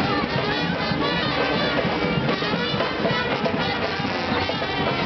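Street brass band playing, horns carrying the tune at a steady level.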